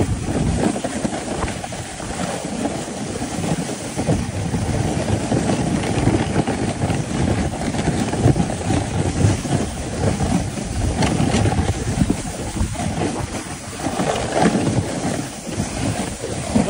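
A sled sliding fast over packed, rutted snow: a continuous rough rumbling and scraping of the sled bottom on the snow.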